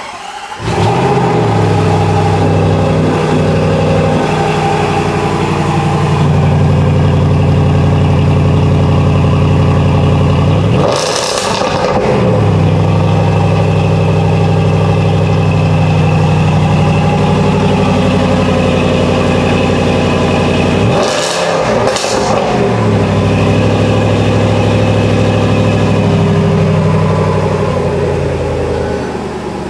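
Range Rover Sport SVR's supercharged 5.0-litre V8 starting up through its active quad exhaust and settling into a loud, steady idle. It is blipped once about 11 seconds in and twice in quick succession around 21–22 seconds.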